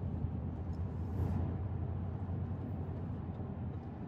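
Road and engine noise inside the cabin of a moving Toyota: a steady low rumble.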